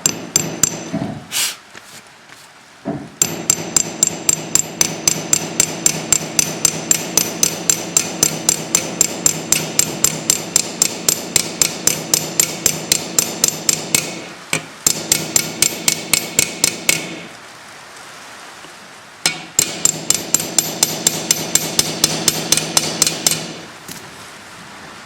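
Small hammer tapping rapidly on a steel rivet head to peen it over, fixing a new sprocket nose onto a chainsaw guide bar resting on a sledgehammer head. Quick, ringing metal taps, about four a second, in three long runs with short pauses between.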